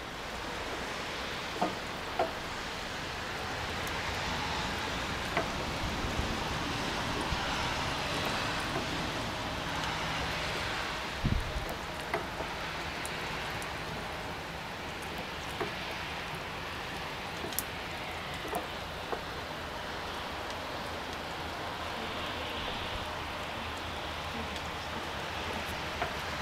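Steady hiss, with scattered light clicks and a stronger knock about eleven seconds in, from a hydraulic hand pump being worked to raise a steel antenna mast.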